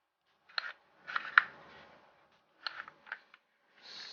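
Crayons and a puzzle box being handled: a few light clicks and knocks as the crayons are pushed into the box, with a short scraping rub a little after a second in and another brief rub near the end.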